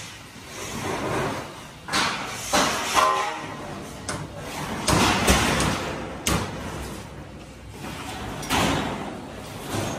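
Building-site work noise: irregular scraping with several sharp knocks.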